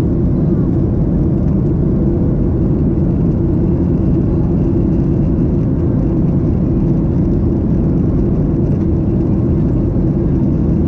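Steady engine and airflow noise inside the cabin of a Boeing 737-800 with CFM56-7B turbofans, an even low drone that holds level throughout.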